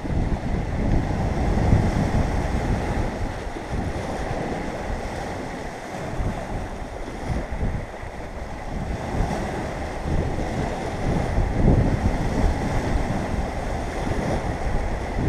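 Wind buffeting the microphone over the wash of sea surf, rising and falling in gusts.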